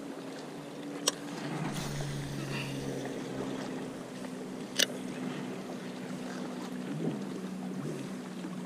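A steady low motor hum, with two sharp clicks, one about a second in and one near the five-second mark.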